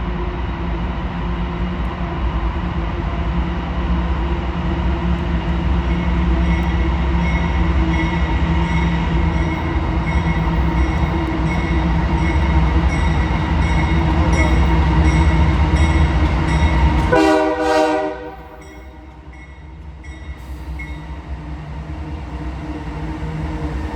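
Union Pacific freight train's diesel locomotives passing, a loud steady rumble with a steady engine drone that builds for most of the stretch. About seventeen seconds in there is a short horn note. Right after it the sound drops off sharply, then slowly rises again near the end.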